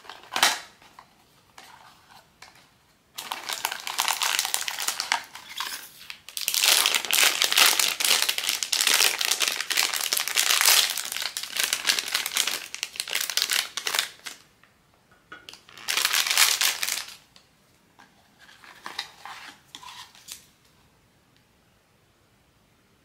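Blind-box figure packaging being handled and opened by hand: a wrapper crinkling and rustling in long stretches, with a sharp click about half a second in and two shorter bursts of crinkling near the end.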